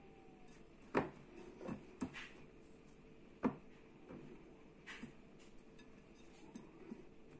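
A hand mixing dry seasoned flour in a glass mixing bowl, with a few sharp knocks and clicks against the glass spaced a second or so apart, the clearest about a second in and again about three and a half seconds in.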